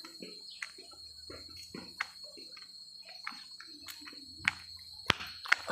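A steady, high-pitched insect buzz, cricket- or cicada-like, from the trees, with scattered short knocks and three sharp clicks in the last second and a half.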